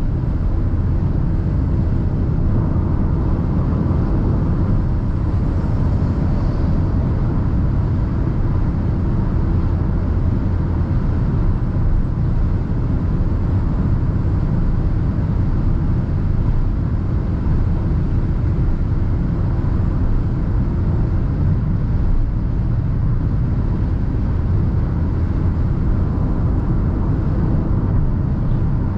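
Steady in-cabin road noise of a 2021 Perodua Ativa 1.0 turbo cruising on a highway: a low, even rumble from the tyres and road with the engine's hum beneath it.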